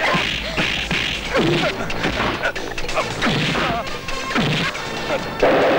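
A series of dubbed fight-scene punch and kick sound effects, each a sharp hit with a whooshing swoop that falls in pitch, about one a second, with the loudest crash near the end.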